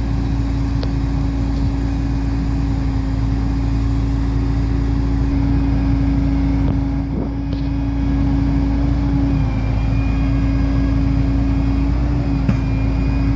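Engine running steadily at one speed, a constant hum that dips slightly in pitch about nine seconds in, with a few faint clicks.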